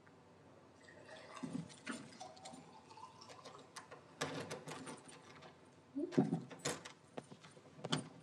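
Faint household handling sounds in a quiet room: scattered light clicks and knocks, with a cluster about four seconds in and another about six seconds in.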